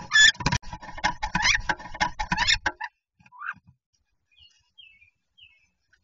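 Two wood duck hens scuffling inside a wooden nest box, calling loudly over a rapid clatter of wings and bodies knocking against the walls, which stops abruptly about three seconds in. After a single short call, a few faint, high, falling chirps follow.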